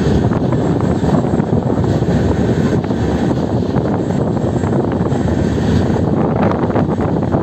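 Moving passenger train heard from on board: a loud, steady rumble of wheels on rail mixed with rushing air, with a few sharper clatters about six to seven seconds in.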